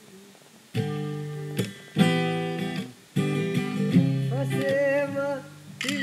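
Acoustic guitar strummed, a chord struck about every second and left to ring, with a voice humming along briefly near the end.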